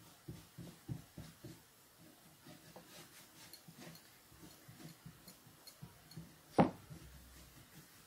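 Paintbrush stroking chalk paint onto a tissue box in a run of soft, quick brush strokes, strongest in the first second and a half and fainter after. One sharp knock about six and a half seconds in is the loudest sound.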